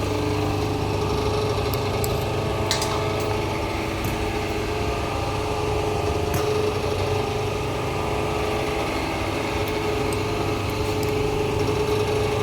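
Steady hum of a hydraulic hose crimping machine's motor-driven pump running at idle, with a couple of light clicks about three and six seconds in.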